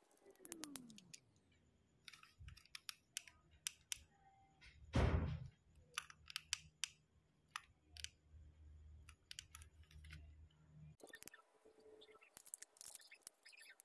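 Scattered light clicks and taps of craft materials being picked up and handled, with one louder thump about five seconds in.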